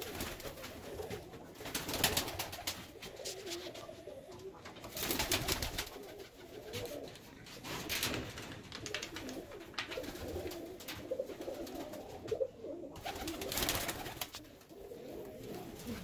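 Domestic pigeons cooing steadily in a loft, with a few brief rustling bursts scattered through.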